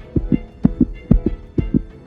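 Background music built on a heartbeat-like double thump, a low hit followed by a shorter pitched beat, repeating about twice a second.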